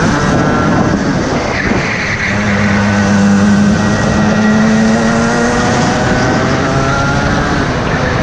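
Racing kart engine heard from the driver's seat: its note falls as the driver lifts off into a corner, then holds and climbs steadily as the kart accelerates back out.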